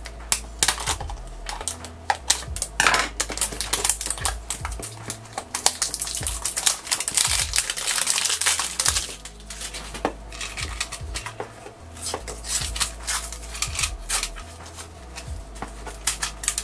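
Plastic shrink wrap crinkling and tearing as it is snipped with scissors and peeled off a small plastic toy carrier box, with many small clicks and rustles; the densest crinkling comes about eight seconds in.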